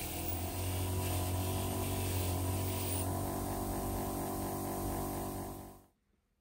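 An electric power tool's motor running steadily, with a strong hum and a hissing rush over it; the hiss eases about halfway through, and the sound cuts off near the end.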